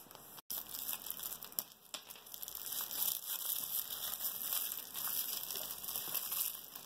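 Thin plastic bag filled with sand crinkling as hands gather and twist its neck closed: a continuous run of small crackles.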